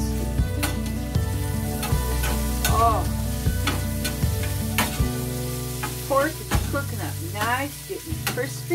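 Background music with a steady bass line, over an even hiss and scattered light clicks.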